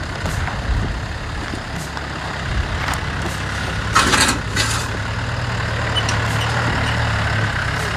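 A 4x4's engine running at low revs while crawling over a trail, its hum growing a little stronger after about five seconds. A few short scraping or knocking noises come about three and four seconds in.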